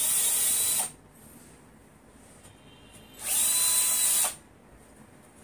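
Cordless drill running in two short bursts of about a second each, drilling marks into the wall through the rack's mounting holes.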